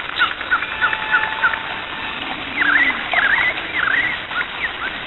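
Animal chirping: quick, high chirps repeating, then a few squeaky swooping calls from about halfway through.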